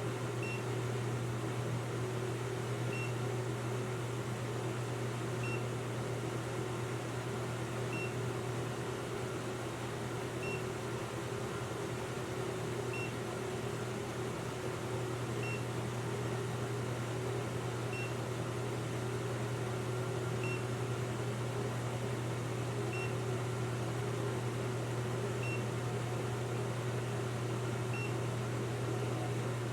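A steady low mechanical hum with a short, high electronic beep repeating about every two and a half seconds.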